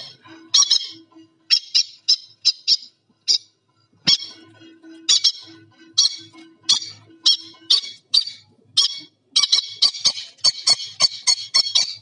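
Hand-reared parrot chick about 25 days old squawking: a string of short, sharp begging calls at feeding time, a few a second, crowding into a rapid run near the end.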